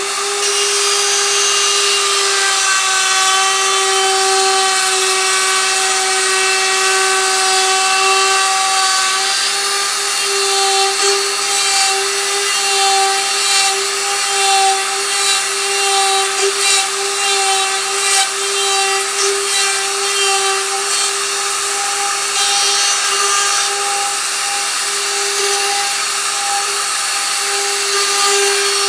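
Ryobi electric router running at full speed with a steady high whine, cutting a 4-inch hinge mortise into the edge of a mahogany door through a hinge template. From about ten seconds in, its loudness wavers as the bit bites into the wood.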